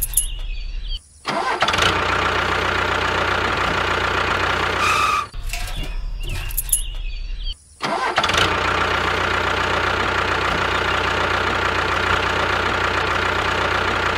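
Tractor engine starting and then running steadily. The same start and run is heard twice, each time after a short cutout, about a second in and again past the halfway point.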